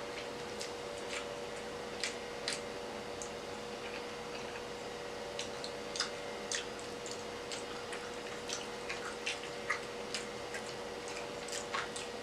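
Close-up eating sounds: irregular short, wet mouth clicks and smacks from chewing, over a steady faint hum.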